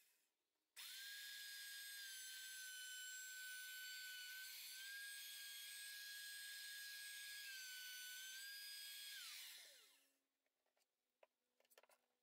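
Handheld electric router with a flush-trim bit running as it trims the edge of Formica laminate, a faint, steady high whine that dips slightly twice. It is switched off near the end and winds down in a falling whine, followed by a few faint clicks.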